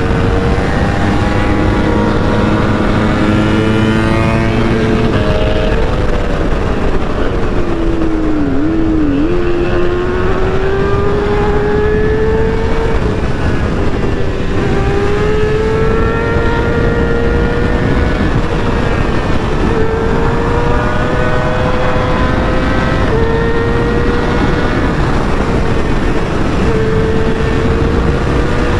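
Honda CBR650R's 649 cc inline-four engine running flat out at high speed, its note climbing slowly as the bike builds toward top speed, over a loud rush of wind. The engine note dips sharply about eight seconds in, then climbs again, with a few smaller drops later.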